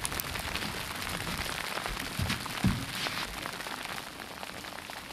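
Hail pattering down, a dense crackle of small ticks, with a couple of low thumps about two and a half seconds in.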